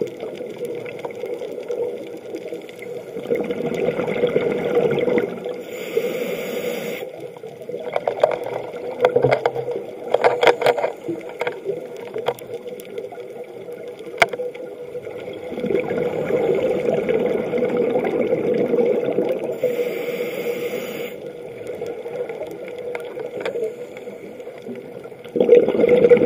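Scuba diver breathing through a regulator underwater: short hissing inhales, twice, each followed by long rushing, gurgling exhales of bubbles. Scattered sharp clicks come between the breaths.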